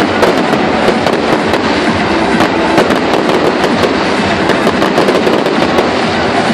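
Fireworks going off in a dense, steady crackle of many small pops with no let-up.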